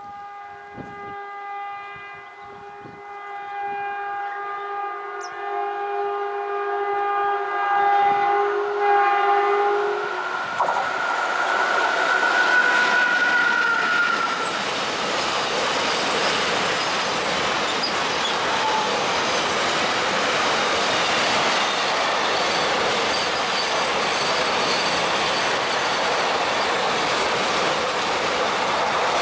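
A WAG-7 electric locomotive's horn sounds one long steady blast for about ten seconds as it approaches, growing louder. The locomotive and its container freight train then pass at over 100 km/h: a brief whine, followed by a steady loud rush and clatter of wheels and wagons on the rails that goes on to the end.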